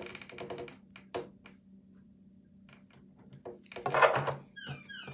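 Small clicks, taps and rustles of hands working a magnet into a toy's plastic battery door on a wooden table, with a louder rustling scrape about four seconds in. Two short falling squeaks near the end.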